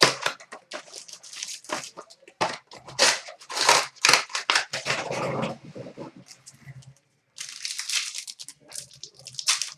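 Crinkling and tearing of wrappers and cardboard as trading card boxes and packs are opened, in quick irregular rips and crackles, with a longer rustle near the end.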